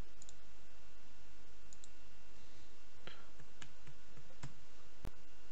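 Computer mouse clicking: a couple of quick double clicks, then a few single clicks, the sharpest near the end, over a steady low hum.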